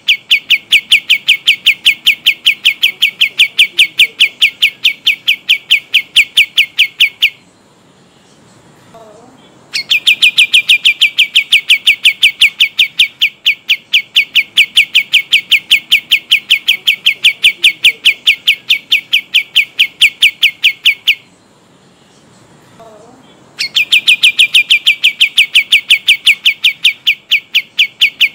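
Kapas tembak, a Bornean songbird, singing long rolling trills of fast, evenly repeated sharp notes. The trill breaks off twice for a couple of seconds, about a third of the way in and again about three quarters of the way in, then starts up again.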